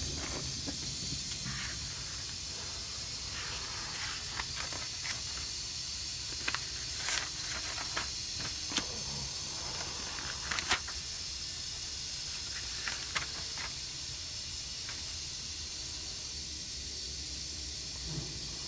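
Steady background hiss and low hum, with scattered faint clicks and taps now and then.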